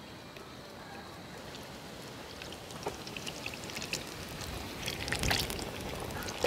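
Hot oil in a wide frying pan sizzling, with crackling and popping that grows denser from about halfway through as batter-coated boiled egg halves go in to deep-fry as egg bajji.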